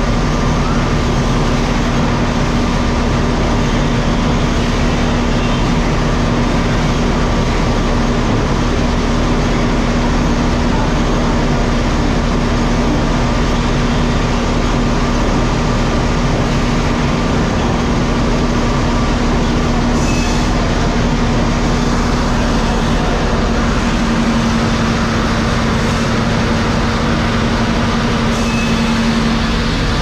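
Sawmill machinery running: a steady, loud mechanical din with a constant low hum underneath.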